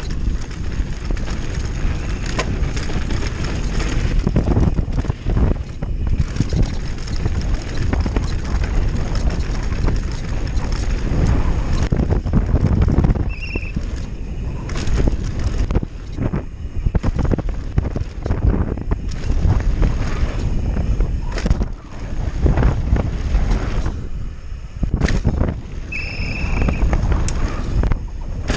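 Downhill mountain bike ridden fast over a rough dirt trail: wind buffeting the helmet-mounted microphone, tyres rumbling over dirt and roots, and the bike rattling and knocking over the bumps. Two brief high tones sound out, about halfway through and near the end.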